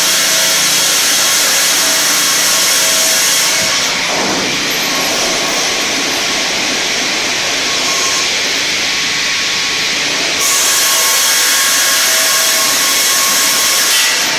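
Twin-blade automated circular sawmill running loudly while sawing a spruce log, with a steady machine drone and a high hiss of the blades cutting wood that is on for about the first three and a half seconds, drops away, and comes back from about ten seconds in.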